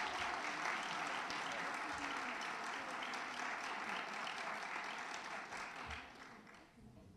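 Audience applauding with many hands clapping together, the applause dying away about six seconds in.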